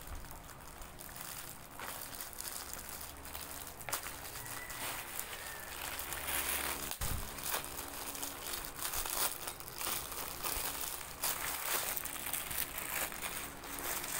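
Clear plastic wrapping crinkling and rustling as a wallet is handled and pulled out of it, in irregular bursts that get busier and louder in the second half.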